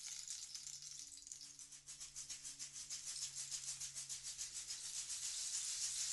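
Chilean rainstick rattling: a high, hissing cascade of pebbles in rapid, fairly even pulses that grow louder toward the end.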